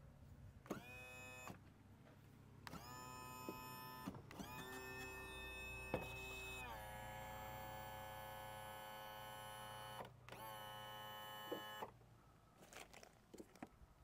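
Power tilt and trim motor of a Johnson 175 outboard whining as it tilts the engine down. It runs in several bursts, each starting with a quick rise in pitch; the longest run lasts about five seconds and drops in pitch partway through.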